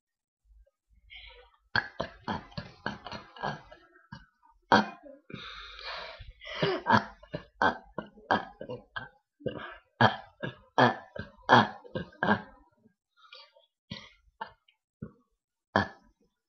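A girl burping over and over: a long run of short, separate burps in quick succession, thinning out to a few scattered ones near the end.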